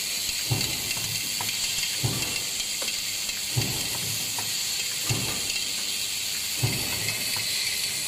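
Automatic pipe-clamp forming machine cycling: a thump about every one and a half seconds with lighter clicks in between, over a steady high hiss.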